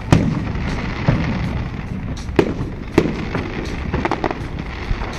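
Fireworks display: a string of sharp bangs and crackles. Four louder booms come about a second in, then around two and a half and three seconds in, over a steady rumble.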